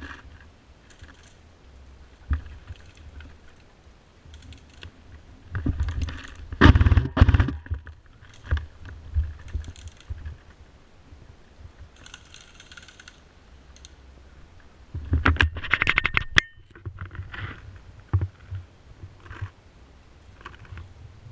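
Rustling, clicking and knocking from an airsoft player's gear and gun, with two dense clusters of rapid sharp clicks, one about six seconds in and another about fifteen seconds in.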